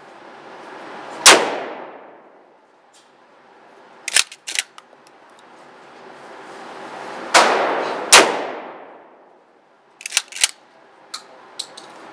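Dickinson 12-gauge pump-action shotgun firing low-recoil slugs in an indoor range. There is a loud shot about a second in and two more close together past the middle, each followed by a long echo. Between the shots the pump is racked with quick double clacks.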